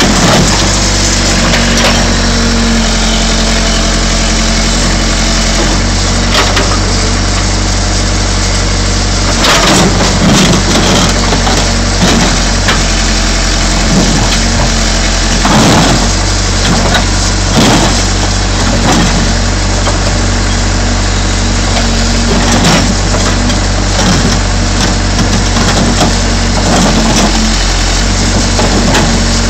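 A 1987 Case 580 Super E backhoe's diesel engine running steadily while it crushes a pickup truck box, with repeated bursts of crunching and cracking. The loudest crunches come about a third of the way in and around the middle.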